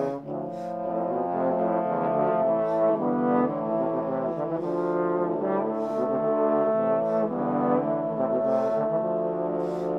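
Four baroque trombones, one tenor and three bass, playing four-part Renaissance counterpoint. The tenor trombone holds the cantus firmus in long notes above the moving bass trombone lines. There is a short drop in loudness just after the start as the chord changes.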